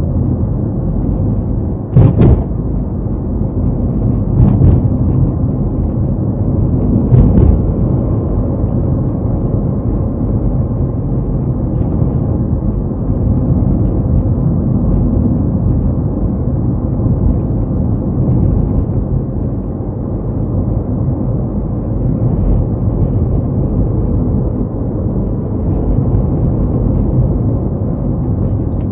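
Car driving along a road: a steady low rumble of tyres and engine, broken by three loud thumps about two, four and a half and seven seconds in.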